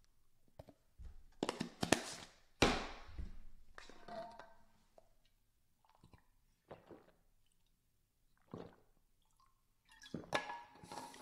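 Mouth and swallowing noises as a spoonful of dry creatine powder is taken and washed down with swigs from a water bottle, in irregular short bursts with quiet gaps, plus a few knocks of the bottle.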